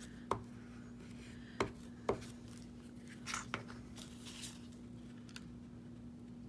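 A few sharp clicks and taps as a glue stick and craft pieces are handled on a cutting mat, then soft rustling of paper and vellum being laid down and adjusted, over a faint steady hum.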